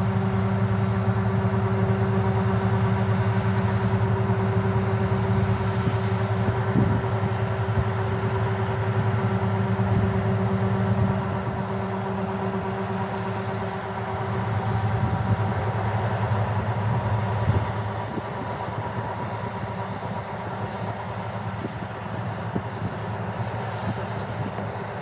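A vehicle engine running steadily with a low hum, which drops in level about eleven seconds in and again near eighteen seconds.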